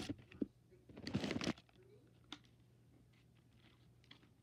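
Hand-drawing handling noise: a couple of light knocks and a half-second scratchy rustle about a second in, like paper and oil pastels being handled, then only faint small sounds.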